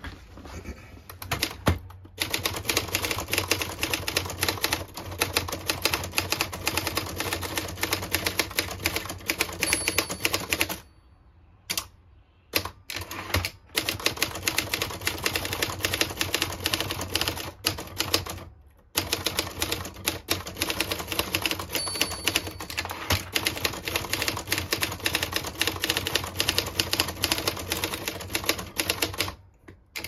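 Olympia SF portable typewriter typed on at full speed: a rapid, continuous clatter of keystrokes, broken by a few short pauses. The machine is quick enough that the typist cannot outpace it.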